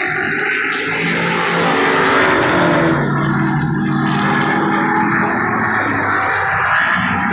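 Race car engines passing at speed, loud, their pitch sliding up and down as the cars go by and pull away.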